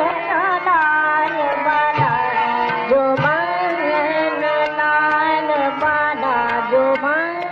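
A Hindustani classical tappa in raga Bhairavi: a female voice with sarangi and harmonium, the melody moving in quick, twisting ornamented runs over a steady held note, with tabla strokes.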